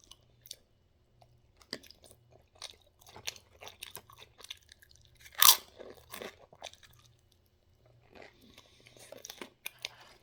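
Close-up chewing of a taco: wet chewing with many short crunches, and one loud crunch about five and a half seconds in.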